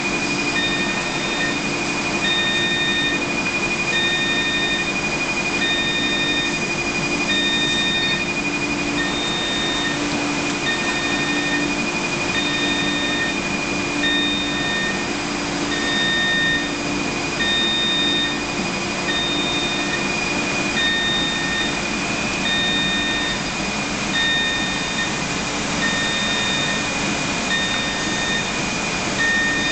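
Running AIO DUNA 700 wafer developer track: a steady machine hum and air hiss with a constant high whine. An electronic beep repeats about every second and a half throughout.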